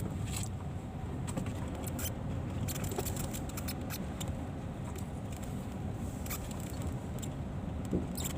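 Car driving slowly, heard from inside the cabin: a steady low rumble from the road and engine, with scattered light clicks and rattles.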